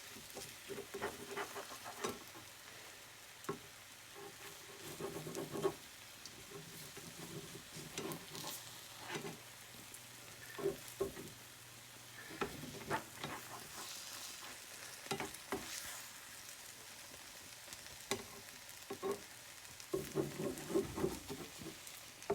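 Scrambled egg sizzling faintly in a frying pan while a spatula scrapes and knocks against the pan in irregular strokes, pushing the egg together into one pile.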